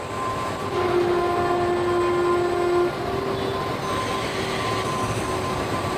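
Steady industrial noise of an automated car-body assembly line with welding robots: a dense mechanical din carrying several held whining tones, one low tone strongest for the first few seconds. The noise grows louder about a second in.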